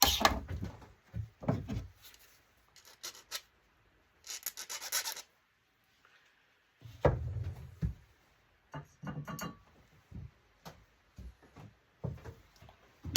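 Hand tools and parts being worked during the teardown of an LCD monitor: irregular scraping and rubbing with scattered knocks and clicks, and a longer run of scraping about four seconds in.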